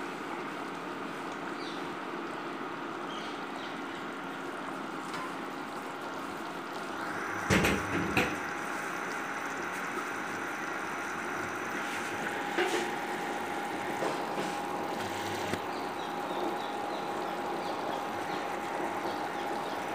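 Sugar syrup boiling hard in a steel pot with rasgullas cooking in it, a steady bubbling. A couple of short knocks come about eight seconds in.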